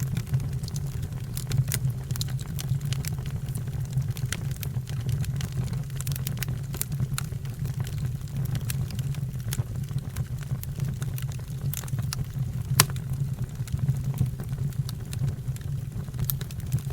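Fire crackling, with sharp irregular pops over a steady low rumble; one pop stands out a little before the end.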